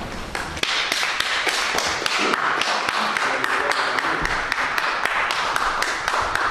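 Audience applauding, with many individual claps standing out.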